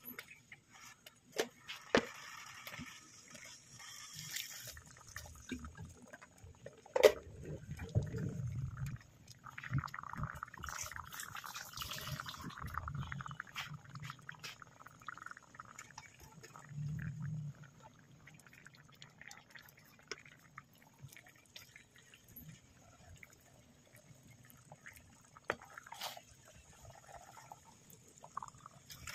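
Spaghetti in a creamy sauce being stirred and tossed in the pan, making wet, sticky sounds, with a few sharp clicks and knocks of the utensil.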